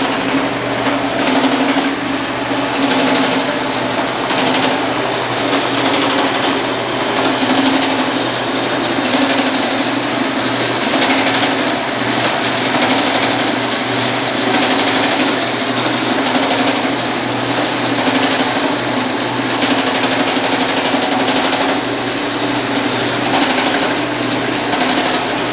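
A homemade power hammer, driven through a cut-down vehicle differential, running continuously. Its dies hammer rapidly on a sheet-metal piece being shaped into a dish, over the steady hum of the drive.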